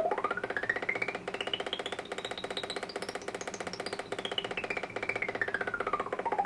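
Harsh synthesized drone from a DIY Eurorack audio-processor module, two oscillators through a balanced modulator, pulsing rapidly. A resonant filter is swept up to a high whistle about three and a half seconds in, then back down.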